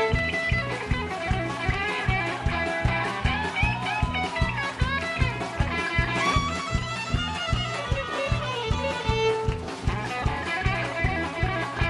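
Live country band with an electric guitar taking a solo, its notes bending, over a fast, even drum and bass beat.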